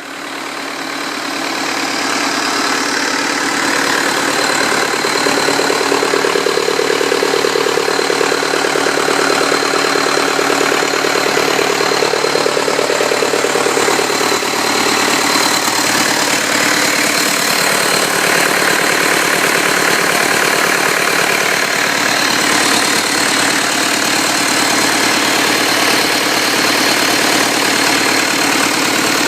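Freshly rebuilt 2006 Cummins 4.5-litre four-cylinder diesel engine running steadily. It comes up to a constant level over the first two seconds and holds even throughout.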